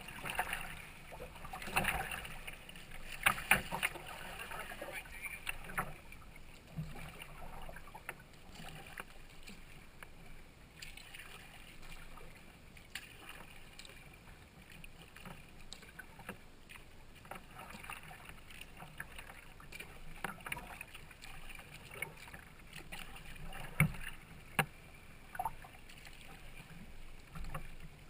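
Kayak paddling on calm water: paddle blades dipping and splashing with dripping water, irregular and busiest in the first few seconds. A few sharp knocks come near the end.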